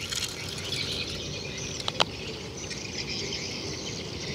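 A single sharp click about two seconds in as a small die-cast metal toy car is handled on concrete, over steady high-pitched outdoor background noise.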